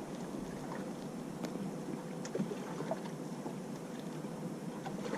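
Steady wind and water noise around a small fishing boat on the open sea, with a few faint ticks.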